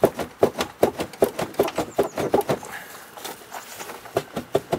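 Rapid, irregular hollow knocking and rattling, about four to five knocks a second, thinning out around three seconds in and picking up again near the end: a Land Rover Discovery 3's plastic rear bumper being jiggled to free it from its clips.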